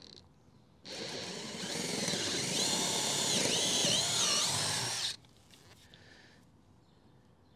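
Cordless drill boring a hole through a wooden deck board. The motor starts about a second in and runs for about four seconds, its high whine dipping in pitch as the bit bites into the wood, then stops.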